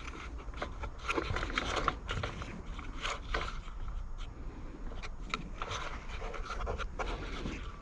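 Handling noises from a Homelite leaf blower being taken apart: scattered light clicks, knocks and scrapes as its housing and fan cover are moved about and set down.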